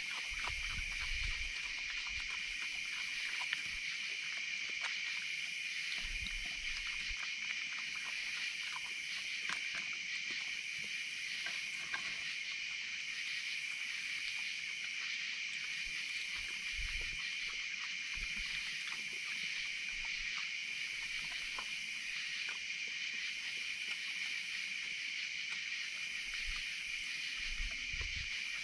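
Night insect chorus: a steady high trill with a second insect pulsing about once a second. Faint clicks and crunches from animals eating crackers and hot dogs on a wooden table are heard through it.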